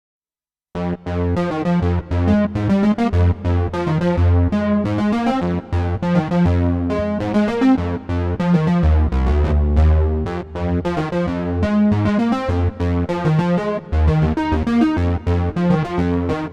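Korg Minilogue XD synthesizer playing a factory preset with a keyboard-like, electric-piano-style tone: a busy run of quick notes over sustained bass notes, starting about a second in.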